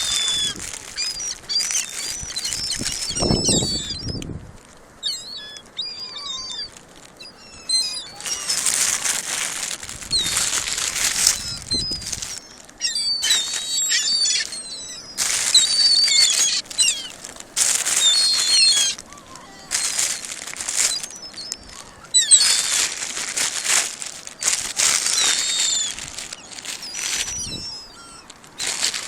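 Gulls flapping their wings in repeated flurries, with many short, high cries. There is a low rumble about three seconds in.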